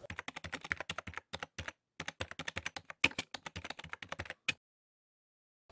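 Rapid keystrokes of typing on a computer keyboard, about eight clicks a second with a few brief pauses, stopping abruptly about four and a half seconds in.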